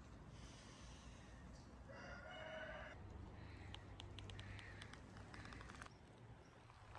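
Near silence, with a faint rooster crow about two seconds in, followed by a run of faint light clicks.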